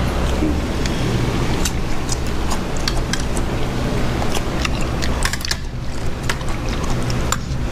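Light, irregular clicks and clinks of metal chopsticks and spoon against metal bowls and dishes during a meal, over a steady low rumble.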